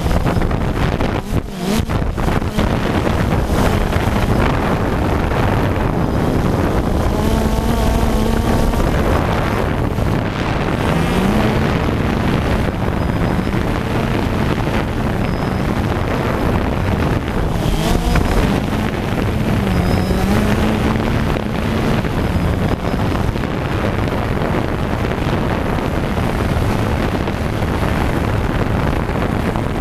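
Multirotor drone's electric motors and propellers running, heard from its onboard camera, the pitch of the hum wavering up and down as it manoeuvres, with wind rushing over the microphone.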